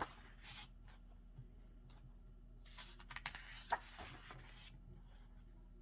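Album pages being handled and turned: faint paper rustling with a few light taps, in two short bouts, one at the start and one from about three to four seconds in.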